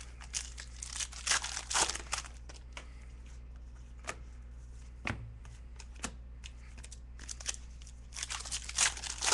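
Trading-card pack wrappers crinkling and tearing as packs are opened, in two spells of crackle: one from about half a second to two seconds in, another near the end. A few single ticks of cards being handled fall in between.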